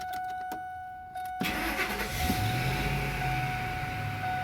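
Ford F-150 engine cranking and catching about a second and a half in, then running steadily with the new idle air control valve fitted. A steady electronic tone sounds throughout.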